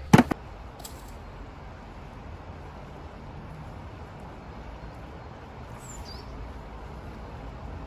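A sharp knock right at the start and a fainter one about a second later, then steady low outdoor background rumble, with one short high falling chirp about six seconds in.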